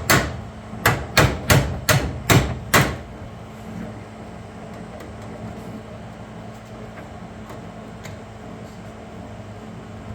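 Hammer blows on sheet metal: about seven sharp strikes in the first three seconds, followed by a steady low background hum.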